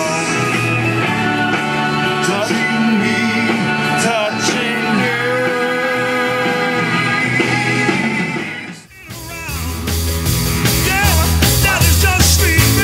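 Rock music with a singing voice over a band. About nine seconds in, the song cuts out and a different rock track with a heavier bass beat starts.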